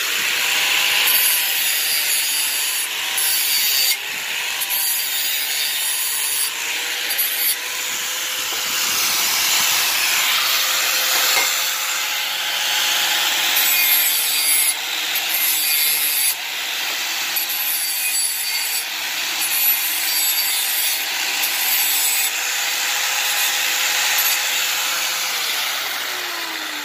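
Angle grinder running steadily, its abrasive disc grinding the cut corners of an aluminium tube round and smooth. The motor winds down near the end.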